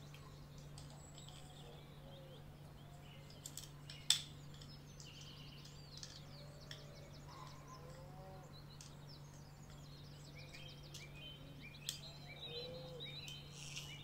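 Faint clicks and taps of small plastic toy-plane parts being handled and a gear fitted onto its axle, the sharpest click about four seconds in and another near twelve seconds. Birds chirp in the background over a steady low hum.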